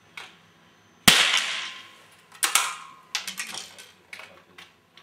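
A single .22 rimfire running target rifle shot about a second in, its report ringing on for nearly a second. It is followed by a run of short metallic clicks as the rifle's bolt is worked to reload.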